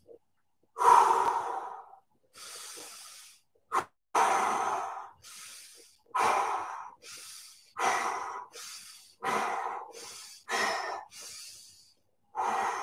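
A man breathing deeply in through the nose and out through the mouth in a slow breathing exercise. About seven strong breaths, each fading away, alternate with quieter ones, and they come closer together toward the end.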